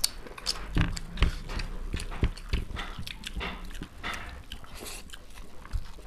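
Two people chewing fried rice and noodles close to the microphone: irregular mouth smacks, bites and clicks.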